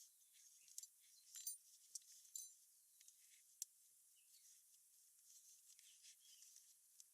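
Faint clicks and rubbing, with two short ringing metal clinks about a second and a half and two and a half seconds in, from small metal parts or tools being handled.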